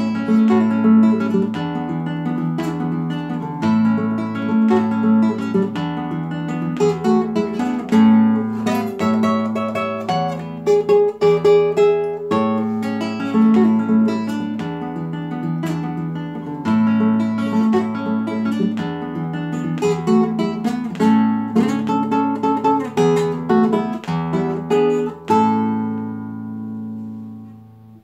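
Solo classical nylon-string guitar playing a gato, an Argentine folk dance tune, with strummed chords and plucked melody notes. A final chord is struck a few seconds before the end and rings out, fading away.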